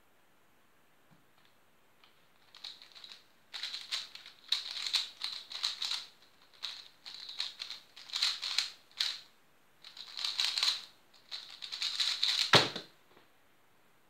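3x3 speedcube being turned fast by hand during a speedsolve: rapid plastic clicking and clacking in bursts of a second or two with brief pauses between. Near the end comes a single loud thump as the solve finishes and the solved cube is set down.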